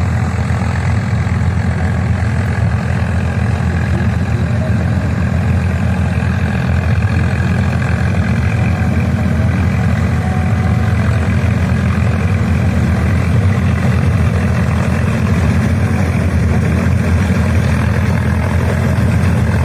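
Swaraj 855 tractor's diesel engine running steadily with a low drone, as it drives a tractor-mounted combine harvester.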